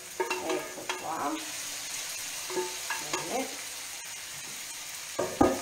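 Romanesco broccoli and pieces of ray flesh sizzling in oil in a frying pan as the fish is scraped out of a steel bowl into the pan, with short scraping sounds and a sharp knock about five seconds in.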